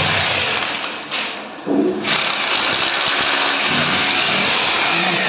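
A motor-driven machine running steadily with a loud hissing whir. It winds down a little after a second in and starts up again sharply about two seconds in.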